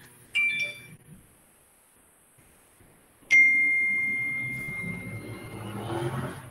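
Two bell-like chimes: a short one about a third of a second in, and a louder one about three seconds in whose single high tone rings on and slowly fades. A low rumble swells under it near the end.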